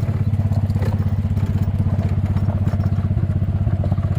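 An engine running steadily with a fast, even low chugging, with faint rattles over it.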